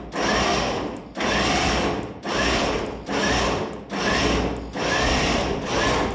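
Steady back-and-forth rasping strokes of a hand tool being worked, about one stroke a second, each lasting most of a second with a brief break between.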